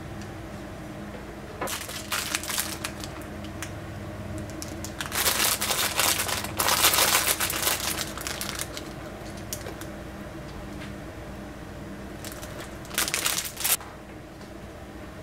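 Crinkling, rustling handling noises with light clicks from preparing the soup bowls and green onion, in three spells, the loudest from about five to eight seconds in, over a steady low hum.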